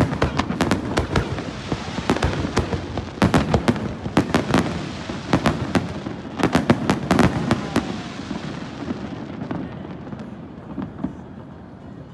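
Aerial fireworks bursting in rapid volleys of sharp bangs and crackles, dense for most of the stretch, then thinning to a few scattered pops near the end.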